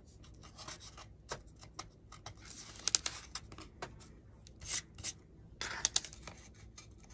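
Fingers rubbing and scraping leftover glue off a painted plaque: irregular scratchy rubbing strokes, with a couple of sharp clicks about three and six seconds in.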